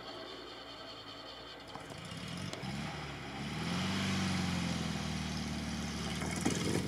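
ZAZ-968M Zaporozhets's rear-mounted, air-cooled V4 engine pulling the car across rough, snowy ground. It grows louder from about two and a half seconds in, then runs steadily under load.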